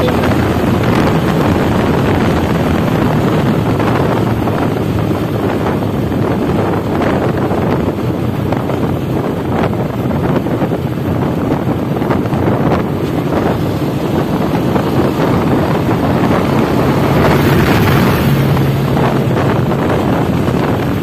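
Wind buffeting the microphone on a motorcycle moving at road speed, mixed with the steady running of its engine. A low engine hum comes up for a few seconds near the end.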